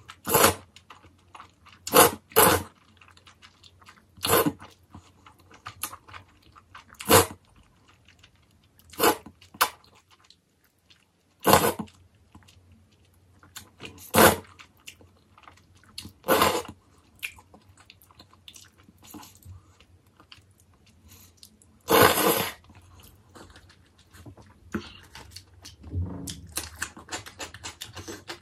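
Jjajangmyeon noodles in black bean sauce slurped up with chopsticks: about ten short, sharp slurps spaced two to three seconds apart, one longer than the rest, with soft chewing between. A quick run of small clicks near the end.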